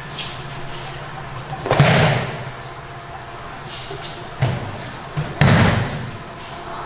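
Thuds of a person falling onto a padded dojo mat in aikido breakfalls: two loud ones about two seconds and five and a half seconds in, with a shorter knock between them.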